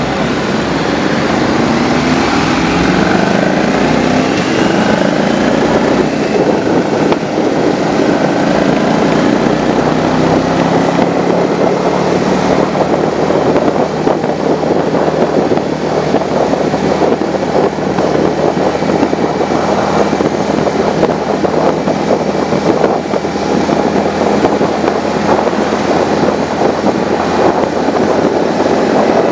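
Motorcycle engine accelerating through the gears, its pitch rising several times over the first eight seconds or so, then cruising steadily. Heavy wind rush on the bike-mounted microphone.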